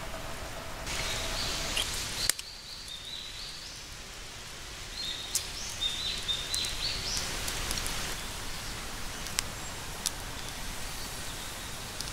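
Bacon strips sizzling on a wire grill over hot embers, with scattered sharp pops and crackles. A bird sings two short runs of stepped whistled notes in the background.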